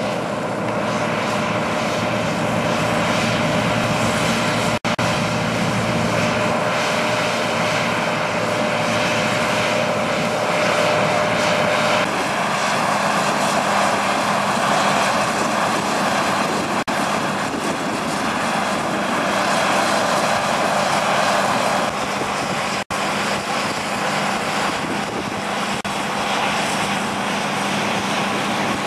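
John Deere combine harvester running while cutting grain: a steady engine drone mixed with the noise of the threshing machinery, with a couple of low hum tones. The sound drops out briefly twice, about 5 and 23 seconds in.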